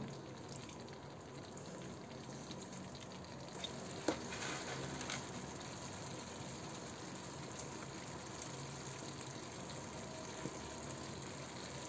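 Thick korma gravy simmering in a wok: a faint, steady sizzle and bubbling, with a couple of light clicks about four and five seconds in.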